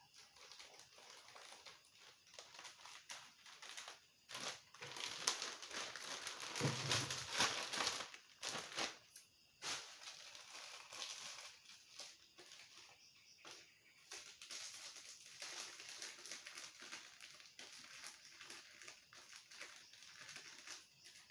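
Crisp fried cassava chips rustling and crinkling as they are handled, loudest from about 4 to 9 seconds in.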